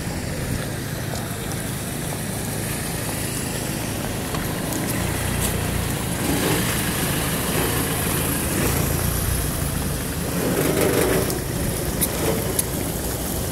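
Rain and city traffic on a wet street: a vehicle's engine runs beneath a steady wash of noise, and a tyre hiss swells about halfway through and eases near the end, as a vehicle passes on the wet road.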